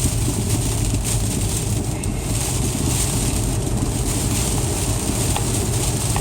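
Steady in-car driving noise: a low rumble of engine and tyres on the icy road, with a constant high hiss of ice pellets hitting the windshield.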